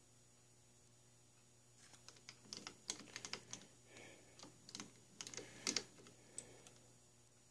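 A quick, irregular run of light metal clicks and taps from a small bar of tool steel being handled against a milling-machine vise and dial test indicator while the set-up is trammed square. It starts about two seconds in and stops about a second before the end.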